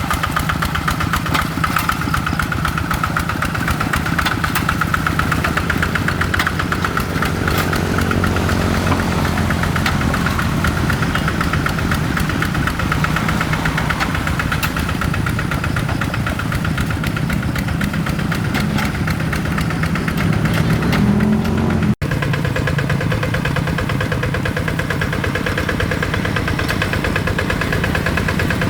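Single-cylinder Kubota RD85 diesel engine on a hand tractor running steadily, with a fast, even firing beat. Its pitch rises briefly about three-quarters of the way through, just before a split-second break in the sound.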